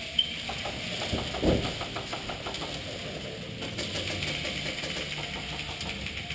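Airsoft guns firing in rapid bursts of clicks, about eight a second, over a steady noisy background.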